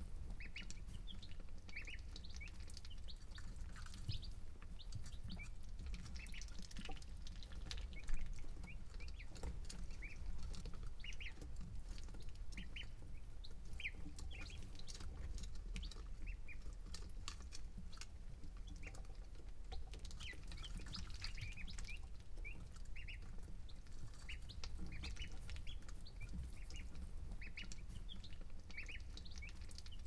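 Baby chicks and ducklings peeping softly, short high peeps scattered every second or so, with a few small clicks. A steady low rumble runs underneath.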